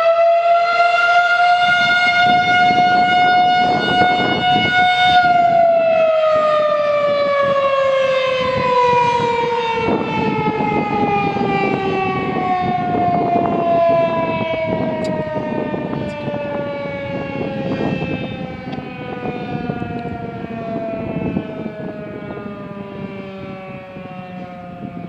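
Federal Signal 2001-SRNB electromechanical outdoor warning siren sounding its noon blast. It holds a steady wail at full pitch for about five seconds, then winds down slowly, its pitch and loudness falling evenly.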